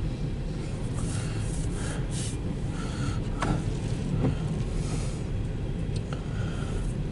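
Steady low hum inside a car's cabin, with the windshield wiper making one sweep across the rain-spotted glass about halfway through, giving a couple of brief knocks.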